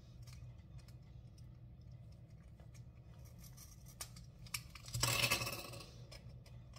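Fingernails picking and scratching at the protective film on a clear acrylic panel: scattered faint ticks, then a louder scraping rustle for under a second about five seconds in. The film is stuck fast and won't peel off.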